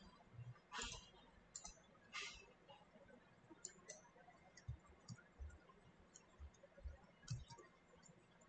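Faint, irregular clicks of a computer keyboard and mouse over near-silent room tone, with two louder clacks in the first few seconds.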